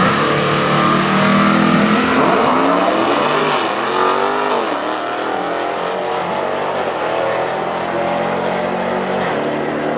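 A supercharged V8 Dodge Challenger SRT Demon and an early-1960s Chevy II Nova launch off the drag strip start line and race away at full throttle. The engine pitch climbs and drops again with each gear shift over the first few seconds, then the sound eases off slightly as the cars head down the track.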